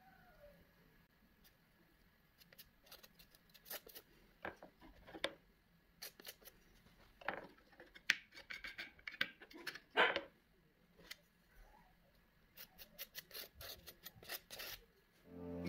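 Metal palette knife scraping and tapping through thick acrylic paint, spreading it on sketchbook paper and mixing it on a plastic palette, in a quiet run of short, irregular scrapes and clicks. The loudest strokes come around the middle, while the paint is worked on the palette.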